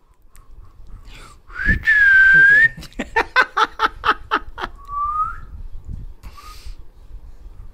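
A person whistling to a baby: one loud whistled note about a second long that dips in pitch and comes back up, then a short burst of quick laughter, then a brief rising whistle.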